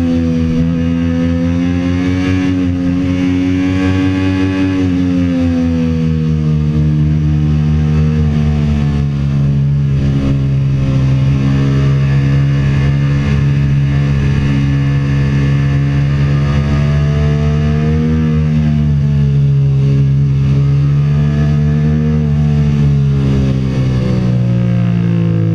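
Sport motorcycle engine running hard at track speed, heard up close from a camera on the bike. Its pitch steps down about five seconds in, rises again past the middle and falls away near the end.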